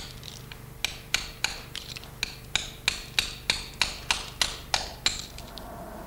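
Small hammer tapping a chisel against salt-encrusted rock and plaster, chipping off salt crystals: about fourteen sharp, evenly paced metallic taps, roughly three a second, starting about a second in and stopping near the end.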